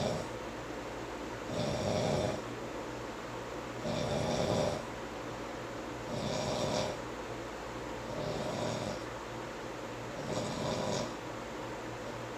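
A man snoring in his sleep, one snore about every two seconds.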